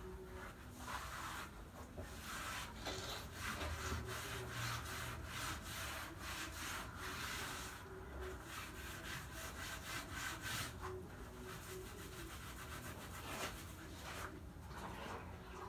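Grout being rubbed by hand across a broken-tile mosaic, a hand tool scraping over the tiles in runs of quick strokes with short pauses.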